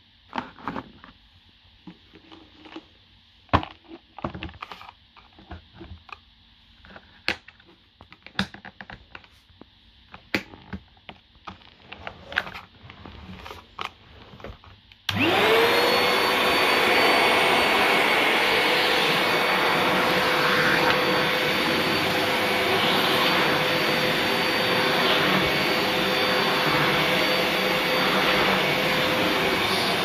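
Scattered clicks and knocks of a Soteco commercial tub vacuum cleaner's filter and motor head being handled and fitted. About halfway through, the vacuum switches on: its motor spins up with a quick rising whine and then runs steadily and loudly.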